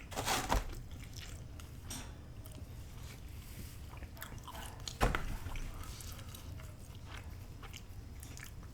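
Close-up eating sounds: a person biting and chewing pizza, with a crunchy bite right at the start, a sharp click about five seconds in, and soft chewing between.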